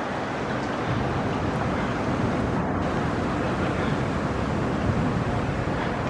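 Steady city street background noise: a constant rumble and hiss of traffic with no distinct events.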